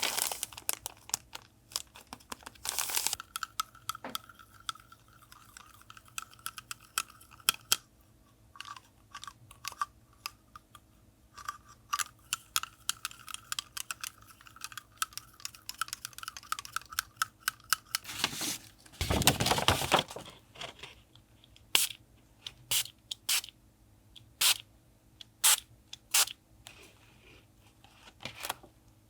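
Close-up handling of paper and craft supplies: a run of small taps, clicks and crinkles, with a longer, louder rustle about two-thirds of the way through.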